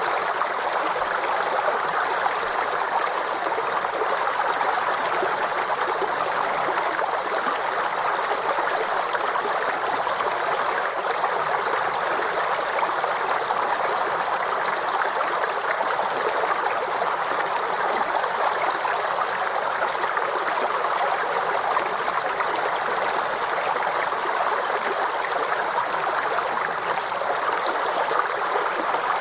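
Forest stream flowing steadily, an even rush of running water.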